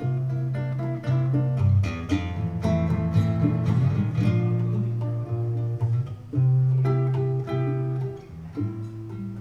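Guitar playing a jazz introduction: picked chords over held low bass notes.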